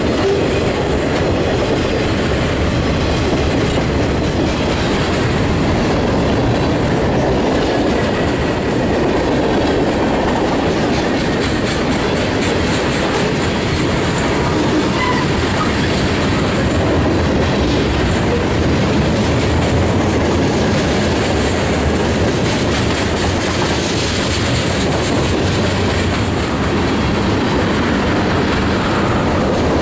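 Freight train cars (boxcars, tank cars and covered hoppers) rolling past close by: a steady, loud rumble of steel wheels on the rails with constant clatter.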